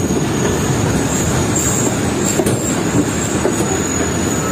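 Passenger train's coaches running along the track past a platform: a steady noise of wheels on rails with a thin high wheel squeal held throughout.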